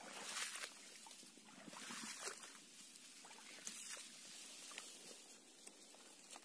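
Faint rustling and brushing of marsh grass and reeds as someone pushes through wet swamp vegetation, in a few short bursts, the loudest at the start.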